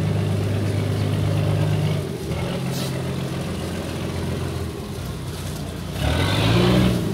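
Boat engine running with a steady low drone. About six seconds in it grows louder and its pitch rises briefly, as if the engine is revved.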